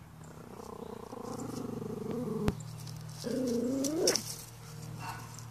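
Pomeranian growling playfully: a long low growl, then a shorter, louder one about three seconds in that rises sharply in pitch at its end. A single sharp click comes midway.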